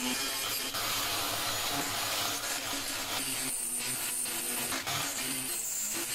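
Die grinder with a small round bit grinding into the welds and cracks of a cast iron window frame, gouging out the metal; the grinding eases off briefly a few times in the second half as the bit is lifted and pressed in again.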